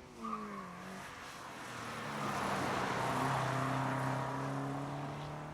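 A street-legal car driving past at speed on a hillclimb course, its engine holding a fairly steady note as it swells to loudest about three seconds in and then fades away.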